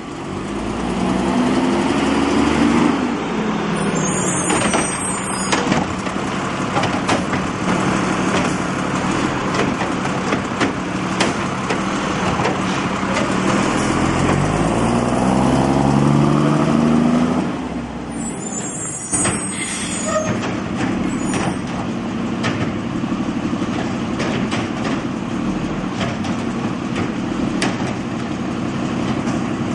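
Automated side-loading garbage truck working its curbside route: the diesel engine revs up and settles back as the hydraulic arm lifts and dumps wheeled trash carts, once near the start and again about halfway through. Sharp knocks and clatter come from the carts and the arm.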